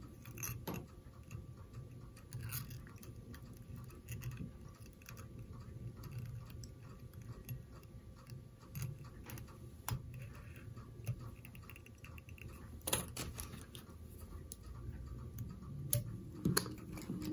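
Faint clicks and scratchy handling of a whip-finish tool as thread is wrapped around the hook to finish a fly, over a low steady hum. Near the end a sharper click comes as scissors snip the tying thread.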